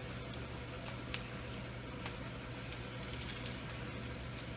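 Flour-and-egg-coated sausage slices frying gently in a frying pan over medium-low heat, a soft steady sizzle, with a few light clicks of wooden chopsticks turning them against the pan. A low steady hum runs underneath.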